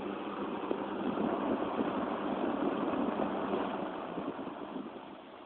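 Vintage three-speed, four-blade electric box fan running on high: a steady, pretty quiet whoosh of moving air and blades. It eases off a little near the end.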